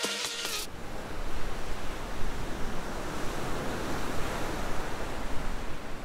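Steady rushing noise of waves and wind, even and without pitch. Music cuts off about half a second in.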